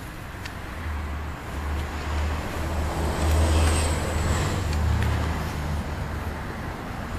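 A motor vehicle passing by: a low engine rumble and tyre noise that build, are loudest about halfway through, then fade away.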